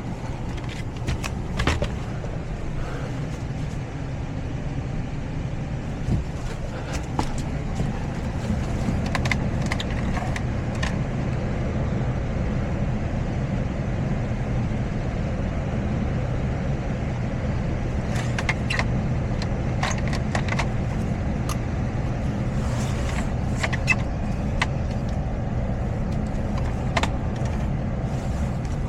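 Heat pump air handler's blower running with a steady low hum while a zone calls for heat, with scattered clicks and knocks from handling the unit and its filter.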